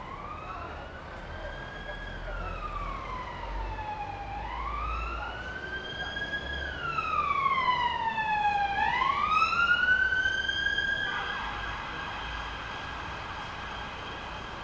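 Emergency vehicle siren in a slow wail, its pitch rising and falling about every four and a half seconds and growing louder midway. About eleven seconds in it changes to a quicker pattern.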